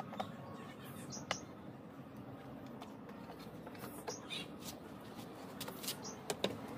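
Scattered light clicks and taps from a car's plastic taillight housing and bulb socket being handled and refitted, over a faint steady background with a few brief high bird chirps.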